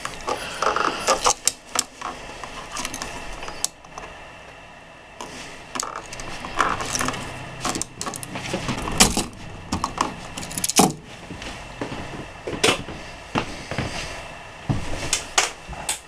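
Small metal clicks, scrapes and rattles at an irregular pace as hands and a small screwdriver work the wires free of an old wall light switch at its plastic electrical box.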